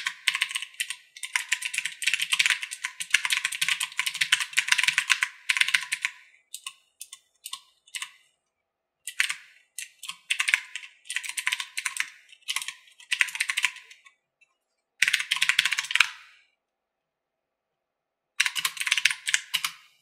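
Fast typing on a Corsair Strafe RGB mechanical keyboard with clicky Cherry MX Blue switches: a rapid clatter of key clicks in bursts, broken by short pauses and one silent gap of about two seconds near the end. It is recorded through a camera's built-in microphone.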